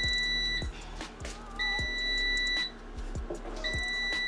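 Power AirFryer Oven beeping: a steady, high-pitched electronic beep about a second long, repeating three times at roughly two-second intervals. A few soft knocks come from the metal tray as it is pulled out of the oven.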